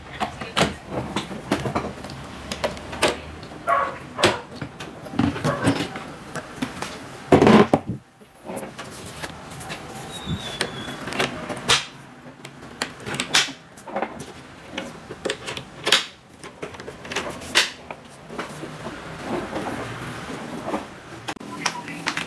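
Metal latches of an aluminium-edged rack flight case clicking open, and its lid and panels knocking and rattling as they are handled, with one loud thump about seven and a half seconds in.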